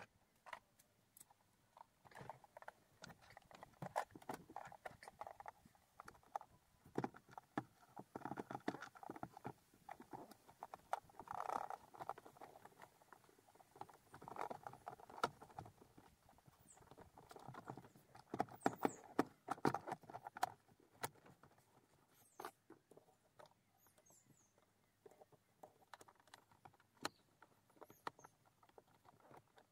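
Hard plastic centre-console trim being lowered over the gearshift and pressed into place by hand: irregular clicks, knocks and clattering, busiest in the first two-thirds and then thinning to scattered clicks.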